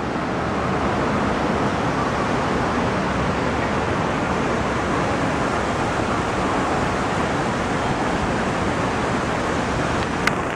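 Steady, even rushing noise of wind and city street traffic, with one sharp click near the end.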